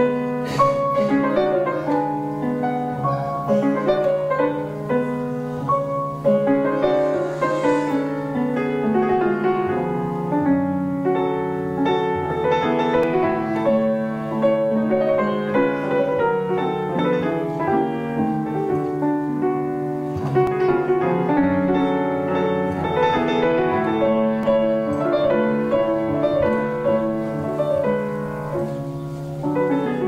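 Solo piano played live: a continuous classical piece of quick runs of notes, with a steady low hum underneath.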